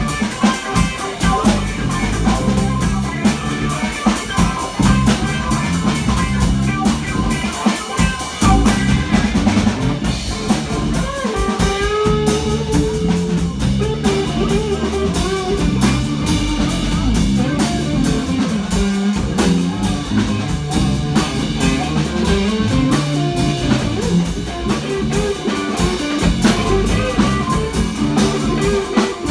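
Live band playing: guitar over a drum kit.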